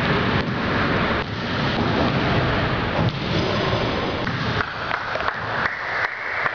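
Steady rushing noise like wind or handling on a camcorder microphone, with several short sharp knocks in the second half.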